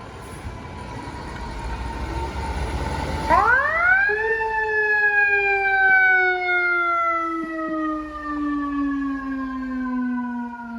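Heavy truck engine rumble growing louder, then a fire truck's mechanical siren winding up fast about three seconds in and slowly coasting down in pitch.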